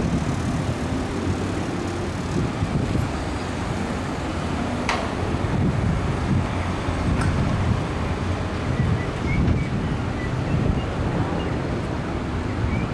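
Steady low rumble of vehicle engine and traffic noise, with wind buffeting the microphone. A single sharp click about five seconds in.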